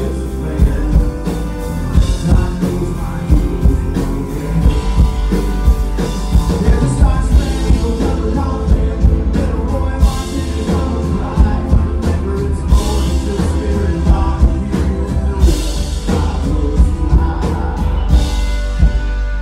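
Live country band playing an instrumental break, with the fiddle taking the lead over strummed acoustic guitar and drums on a steady beat.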